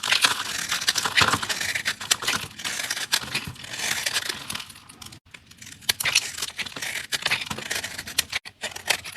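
A blade cutting through dry, crunchy soap, giving a dense crackling crunch in about three long passes, with a brief break about five seconds in.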